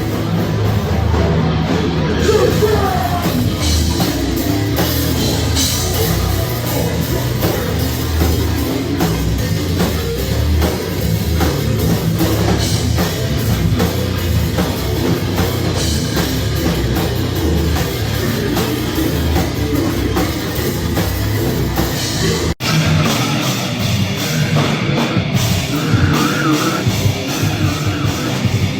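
Loud heavy rock music with drums and singing. It cuts out for an instant about two-thirds of the way through and comes back with much less bass.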